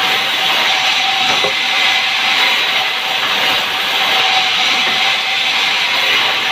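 Sawmill saw running through timber: a steady, loud hissing noise with a faint steady whine underneath.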